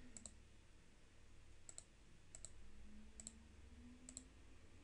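Faint clicks of a computer mouse: about five quick double clicks, roughly a second apart, over a quiet room.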